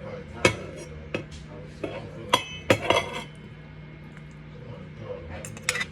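Dishes and metal utensils clinking and clattering: about six sharp knocks, the loudest bunched near the middle, some with a short metallic ring.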